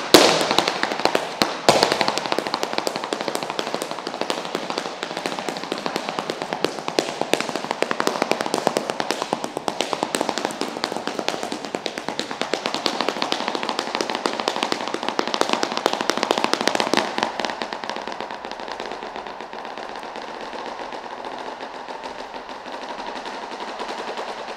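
Flamenco footwork (zapateado): heeled boots striking a wooden floor in fast, dense volleys of heel and toe taps. The taps grow quieter and more even from about seventeen seconds in.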